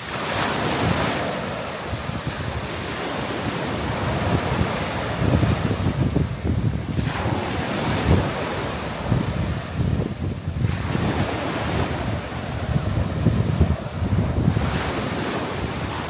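Small waves breaking and washing up a sandy beach, the hiss of the wash swelling and fading every few seconds, with wind buffeting the microphone.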